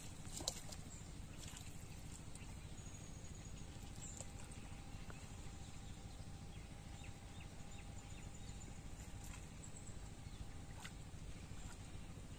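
Faint outdoor ambience: a steady low rumble with a sharp click about half a second in and a few light ticks. A faint thin tone holds for several seconds in the middle.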